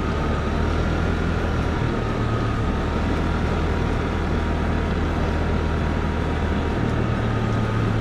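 Small 50cc moped riding slowly downhill: a steady engine drone with a faint whine held over it and continuous road noise. Its low note shifts a little a couple of times.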